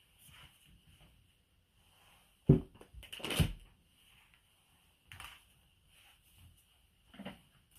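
A sharp thunk of kitchenware being set down on a table, followed by brief handling noise and a couple of softer knocks.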